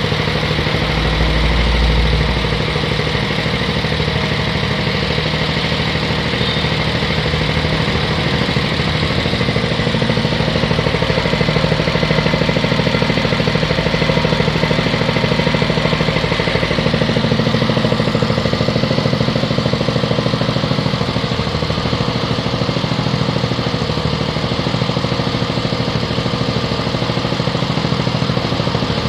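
Catfish feed pellet machine running steadily, driven by a small engine, with a low rumble that swells briefly about a second in.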